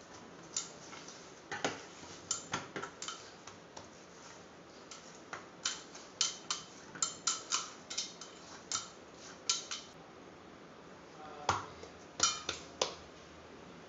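Stainless steel mixing bowl clinking and knocking against the counter while oiled dough is kneaded and slapped inside it: irregular taps and clicks, with a quick run of them near the middle.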